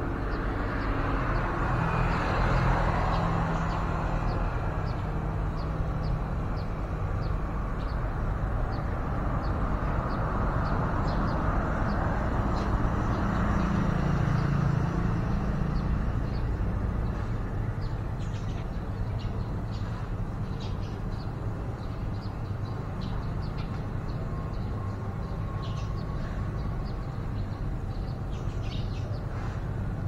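Steady road-traffic rumble that swells as vehicles pass, about two seconds in and again around twelve to fifteen seconds in, with faint, short high bird chirps scattered throughout.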